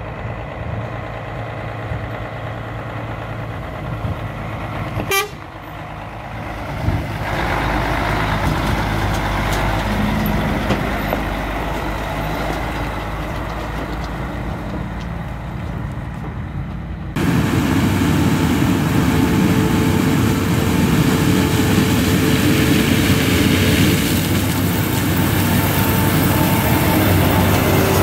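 Semi truck diesel engine running as the truck drives, with a short sharp toot about five seconds in and the engine getting louder a couple of seconds later. At about 17 s it cuts suddenly to the louder, steady running of a Claas Lexion combine harvester threshing corn.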